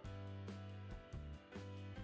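Background music with a steady beat: a strong bass line and chords under evenly spaced drum hits about every half second.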